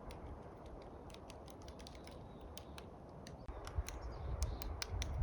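Wood campfire crackling: scattered sharp pops and snaps over a faint hiss, a little busier in the last couple of seconds.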